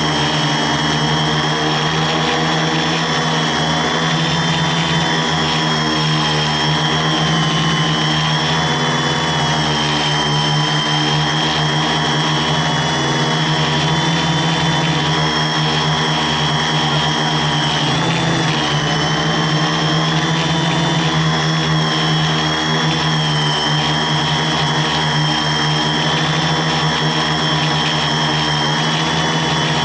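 Electric multirotor (quadcopter) motors and propellers running steadily in flight: a continuous whine whose pitch wavers slightly and dips briefly about eighteen seconds in.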